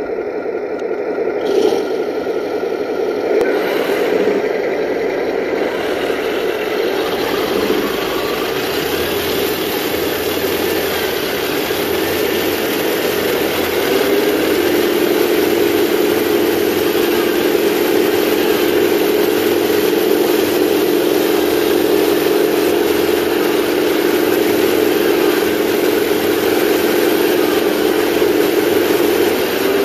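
Simulated tank engine sound from the speaker units of 1/16-scale RC tanks, running steadily while they drive over asphalt, with noise from their drive gears and tracks. About halfway through, the engine sound settles into a steadier hum.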